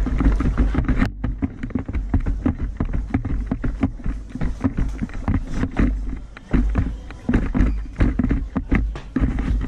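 Rapid footfalls and rattling gear of a police officer running on foot in heavy equipment, over a low rumble of buffeting on the body-worn microphone.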